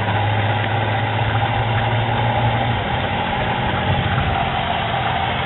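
A motor running with a steady hum, a low drone and a higher whine held unchanged.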